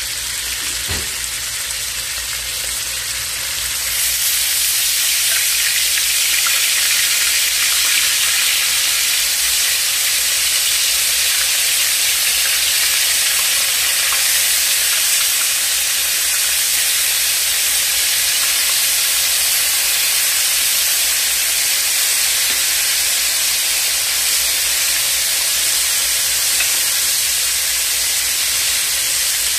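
Floured fish pieces frying in hot oil in a wok-shaped pan: a loud, steady sizzle that gets louder about four seconds in as the fish goes into the oil.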